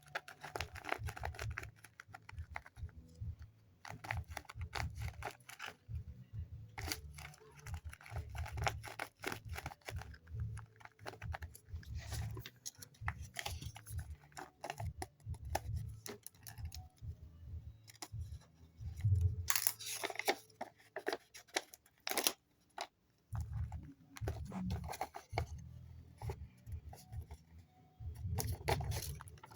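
Paper blind bag being handled and opened: paper crinkling and tearing in irregular bursts, with dull handling bumps throughout. A louder burst of tearing comes about two-thirds of the way through.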